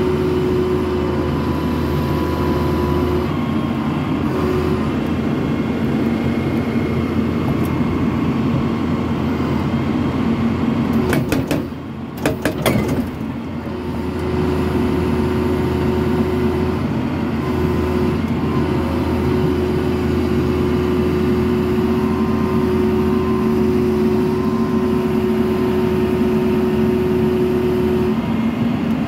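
John Deere 892 ELC excavator's diesel engine working under load while its hydraulic hammer pounds rock in rapid blows, with a steady hydraulic whine. The hammering pauses briefly about twelve seconds in, with a few sharp knocks, then starts again.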